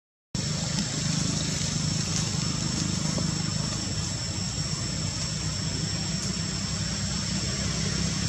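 A steady low engine-like hum with a thin steady high whine above it. It starts just after a short dropout at the start and runs without change.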